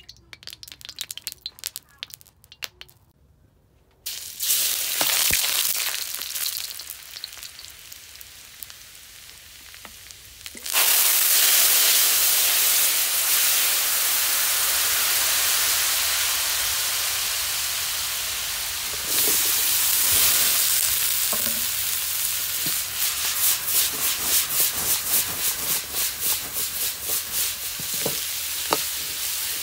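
Food sizzling in hot oil in a carbon-steel wok over a wood fire: faint clicks at first, a sudden sizzle about four seconds in, then a much louder, steady sizzle from about eleven seconds in as broccoli, carrot and baby corn fry, jumping again near twenty seconds. In the last part the sizzle pulses about three times a second as the vegetables are stirred and tossed with a ladle.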